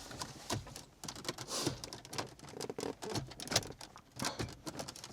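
Irregular small plastic clicks, taps and a brief rustle as a CarPlay screen unit is pushed and clipped into a car's dashboard.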